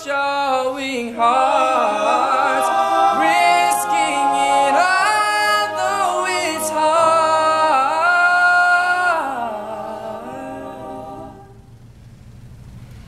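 All-male a cappella group singing in close harmony, several voices holding chords with slight vibrato; the singing fades away about ten seconds in.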